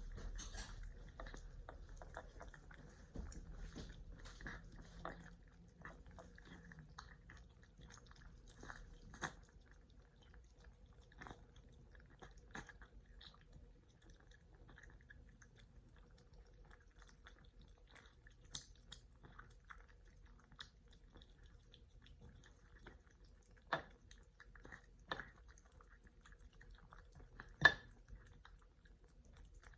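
Cats chewing and biting their food, with a steady scatter of small clicks and a few sharper clicks near the end.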